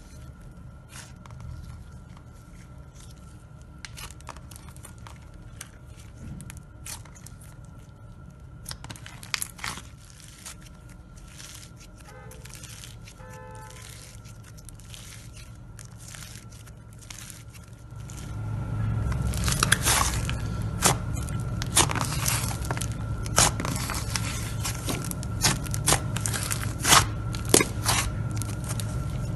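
Hands squishing, stretching and pressing slime, a steady stream of small sticky crackles and clicks. About two-thirds of the way through it gets louder, with denser crackling and a low rumble as a thicker slime is kneaded.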